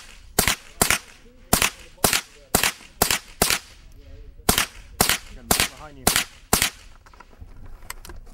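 .22 rimfire gun firing single shots in quick succession: about a dozen sharp cracks, roughly two a second, in two strings with a short pause just before the middle, stopping about two-thirds of the way through.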